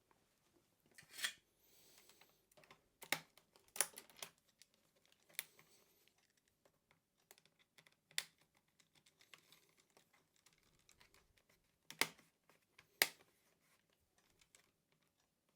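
Irregular light clicks and taps of hands working inside an open laptop while a RAM stick is seated, with a few sharper plastic clicks spread through, two of them about a second apart near the end.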